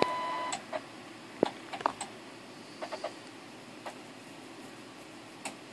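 A handful of short button clicks at irregular intervals as a new frequency is keyed in on a Stabilock communications test set. A steady test tone cuts off about half a second in.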